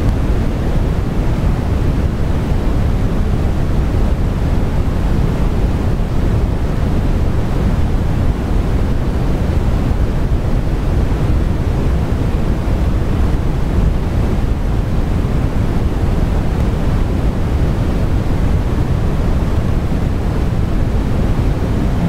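Steady, loud rushing noise, strongest in the low end, with no change or break throughout.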